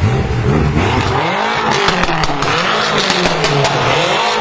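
BMW M5 F10's twin-turbo V8, breathing through catless downpipes, running hard with its engine speed rising and falling several times. Sharp exhaust crackles and pops come in from a little under two seconds in.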